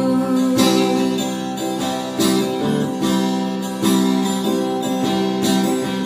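Acoustic guitar strummed as a song accompaniment, chords ringing on between strums, with a fresh strum about every one and a half seconds.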